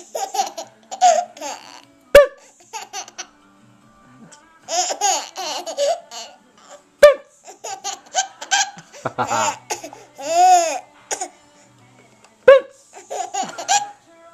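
Baby laughing in bouts of giggles with short pauses, broken by three sudden, short loud sounds and, about ten seconds in, a long squeal that rises and falls in pitch.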